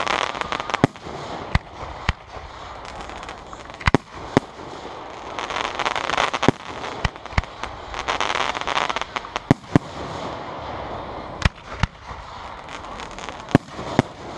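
Aerial fireworks shells launching and bursting, about a dozen sharp booms and cracks at irregular gaps of a fraction of a second to two seconds, with noisy rushing stretches between them.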